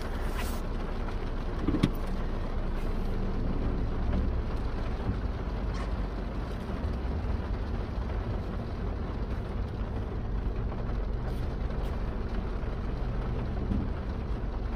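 Rain falling on a car's roof and windshield, heard from inside the cabin over the car's low steady hum, with one sharp click about two seconds in.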